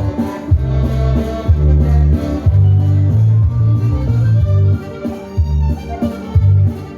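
A dance band playing a waltz, with a strong, pulsing bass line under the melody.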